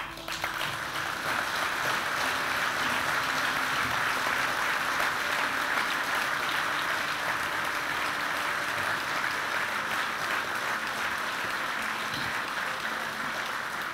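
A large audience applauding, breaking out at once and holding steady, only beginning to ease near the end.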